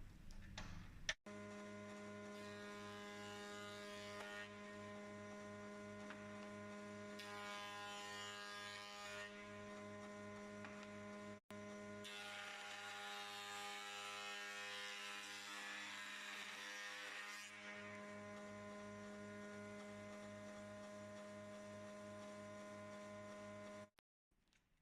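Faint, steady electrical hum with a low pulsing undertone, and three stretches of faint hiss laid over it.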